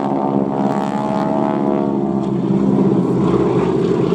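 Boeing Stearman biplanes' radial engines and propellers droning steadily as the formation flies by.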